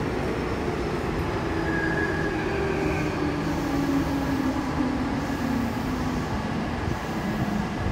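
Interior of a Meitetsu 100 series subway train in a tunnel: steady rumble of the running train with a motor whine that slowly falls in pitch as the train slows for the next station.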